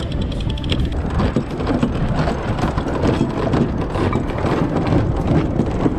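Wind and sea noise rushing over the deck of a sailing catamaran, with many sharp clicks from the deck winches as lines are cranked and hauled in.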